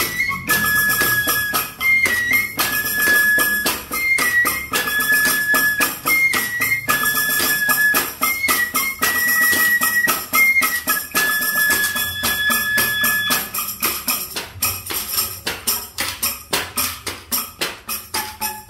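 Bamboo flute (suling) playing a short phrase of high held notes, repeated several times, over fast jingling, clattering percussion from a homemade one-man-band rig. The flute drops out about two-thirds of the way through, leaving the percussion alone until a lower flute note enters near the end.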